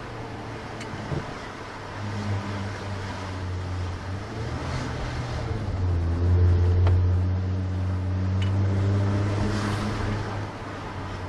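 2017 Jaguar F-Pace's 3.0-litre supercharged V6 running steadily through a Velocity AP touring exhaust, a low drone that rises a little about two seconds in and grows louder about six seconds in.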